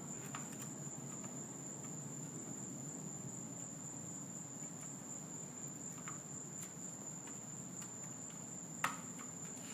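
A steady high-pitched tone over a low background hum, with a few faint ticks and one sharp click near the end.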